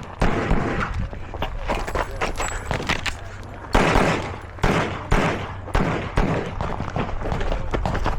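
A string of pistol shots fired at uneven intervals, with short pauses between groups of shots, as a shooter works through a competition stage.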